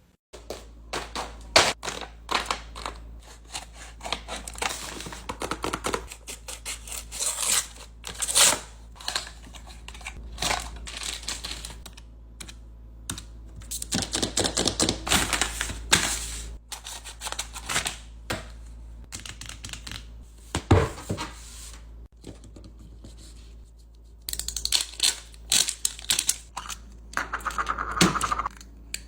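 Paper blind bags handled and opened up close: paper crinkling, rustling and tearing in quick crackly runs with short pauses between.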